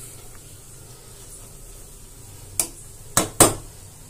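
A few sharp knocks of a metal spatula against the frying pan: one about two and a half seconds in, then two close together, over a faint steady hum.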